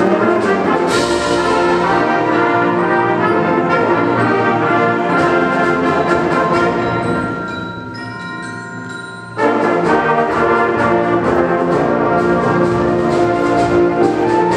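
High school concert band playing, with the brass prominent. About halfway through, the full band drops back to a few softer held notes, then comes back in at full volume all at once a couple of seconds later.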